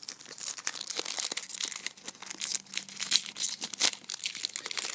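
Crinkling of a foil trading-card pack wrapper, a 2012 Topps football pack, as it is torn open by hand: a dense run of sharp crackles.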